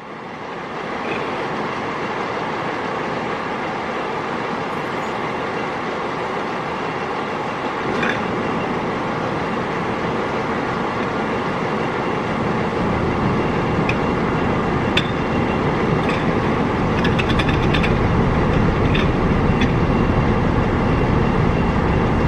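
Steady mechanical running noise, like vehicle engines running, getting louder and heavier about halfway through, with a few faint clicks.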